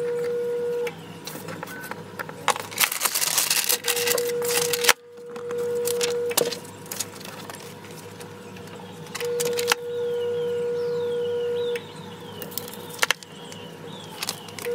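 Paper rustling and crinkling as sheets are handled, with a few sharp clicks. A steady mid-pitched hum switches on and off several times.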